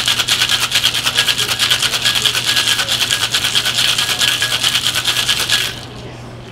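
Metal cocktail shaker being shaken hard, its contents knocking against the tin in a fast, even rattle that stops suddenly near the end.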